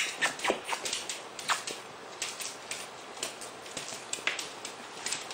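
Toy poodle puppies playing, their scuffling making light, irregular clicks and taps throughout.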